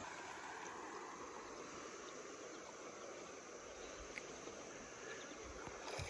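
A faint, steady chorus of summer insects, with a single soft tick about four seconds in.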